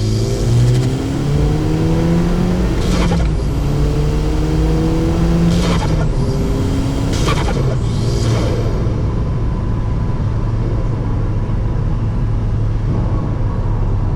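Audi S3 8P's turbocharged 2.0-litre four-cylinder, on an open intake and Stage 2 tune, pulling with rising revs, broken by short whooshing bursts of turbo flutter at each lift-off, about three, six, seven and eight seconds in. It then settles into a steady drone.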